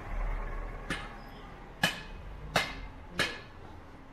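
Four sharp strikes, each with a short ringing tail, coming a little quicker one after another, after a low vehicle rumble fades in the first second or so.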